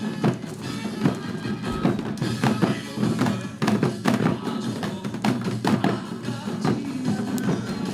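Group of players beating janggu (Korean hourglass drums) along to a recorded trot song: sharp drum strokes over the music.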